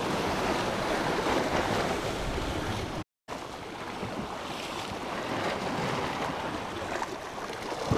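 Small sea waves washing and breaking against a rocky shore in a steady wash of surf. The sound cuts out for a moment about three seconds in and returns a little quieter.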